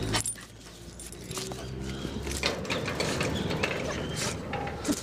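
Irregular clicks and scraping of a Border Collie puppy's paws and claws scrabbling on the concrete and the metal gate as it reaches under the bars, with a sharp click about a quarter-second in.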